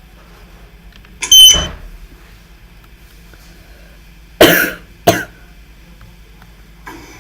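A person coughing loudly three times: one cough about a second in, then two more close together about four and a half and five seconds in.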